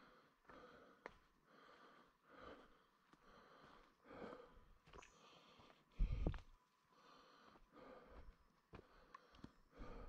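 Footsteps on a rainforest walking track, soft and steady at about one step a second, with one loud low thump about six seconds in.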